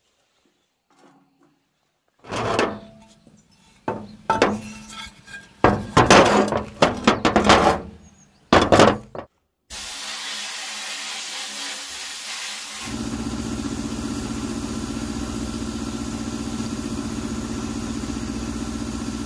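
Irregular knocks and scrapes, then about ten seconds in the sudden steady hiss of a blasting-cabinet gun as it blasts dirt off a scooter engine crankcase. A few seconds later a steady motor hum joins the hiss.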